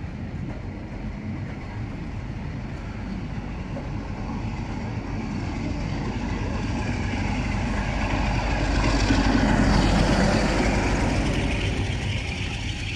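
Passenger coaches of a departing train rolling past, their wheels running on the rails. The sound grows steadily louder to a peak near the end as the last vehicle goes by, then eases off.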